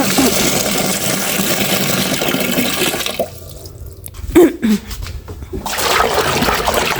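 Water running into a washtub as it is filled for washing. The rush drops away about three seconds in and builds again near the end.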